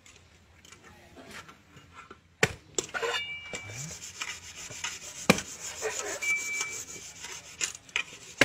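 Heavy cleaver chopping and shaving the fibrous husk of a green coconut. A few sharp chops start about two and a half seconds in, with rasping, scraping cuts between them.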